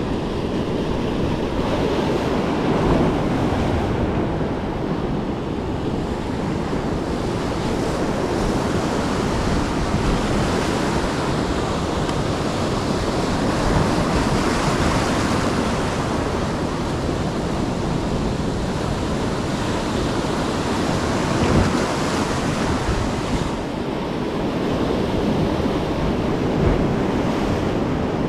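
Ocean surf breaking and washing up a beach, a steady rushing wash that swells and eases every few seconds, with wind buffeting the microphone.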